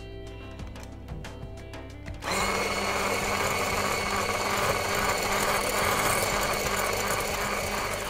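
Electric stick blender with a whisk attachment running at steady speed, whisking eggs and sugar in a glass bowl. It starts about two seconds in with a steady motor whine and cuts off near the end.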